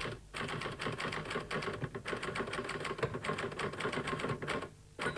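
Typewriter sound effect: a rapid, regular run of key strikes, about six or seven a second, typing out a line of text and stopping near the end, followed by a brief burst of noise.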